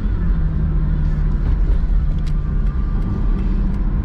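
Steady low rumble of a motor vehicle, with a held low hum and a few faint clicks.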